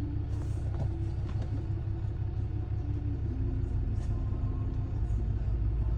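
Steady low rumble, with faint intermittent tones above it and a few faint brief clicks.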